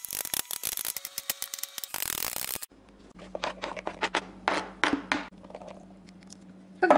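Kitchen knife chopping boiled potato on a plastic cutting board, a quick run of knocks. Then come scattered scrapes and knocks as the chopped vegetables are scraped off the board into a plastic bowl, over a faint steady hum.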